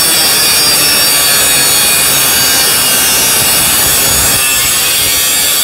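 A grinder cutting sheet metal: a loud, steady, high-pitched grinding hiss with the motor's whine held level throughout.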